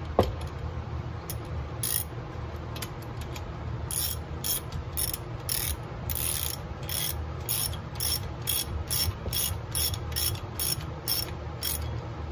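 Irregular sharp metallic clicks, a few a second, from a hand tool working the chain tensioner on a Husqvarna 572XP chainsaw as the chain tension is adjusted.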